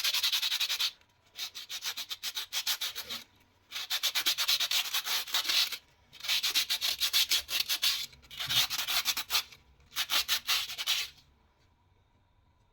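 Rapid hand scraping in quick, fine strokes, in five bursts of one to two seconds each separated by short pauses, the last one ending about eleven seconds in.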